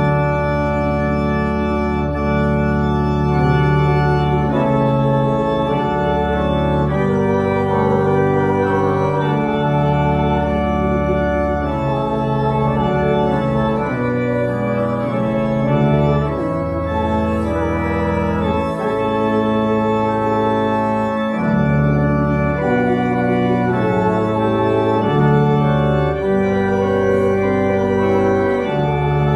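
Church organ playing a hymn in slow, held chords, the bass notes changing every second or two.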